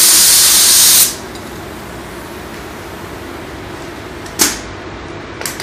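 Paint spray gun, its air pressure turned down to about 14 psi, hissing loudly as it sprays a pass and shutting off about a second in. Two brief blasts of air follow, one past the four-second mark and one near the end.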